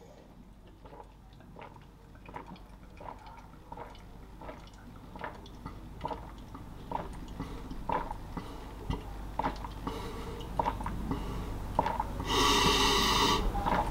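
A person gulping down a cream-of-rice and whey protein shake from a metal shaker bottle, in a run of soft swallowing gulps about every half second to a second that grow louder. Near the end comes a loud rushing sound about a second long.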